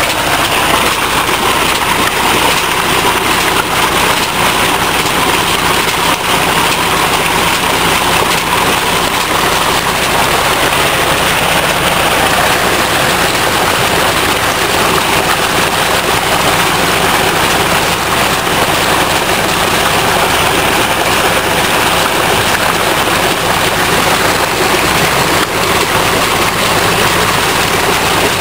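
Water gushing steadily from a tubewell's outlet pipe and splashing into a concrete tank, with a steady low hum beneath.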